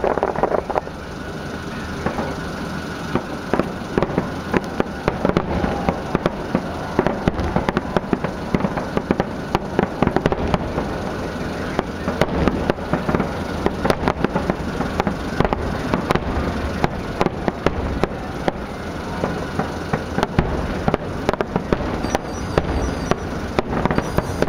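Aerial firework shells bursting in a dense, irregular barrage of bangs and crackles, one after another without a break.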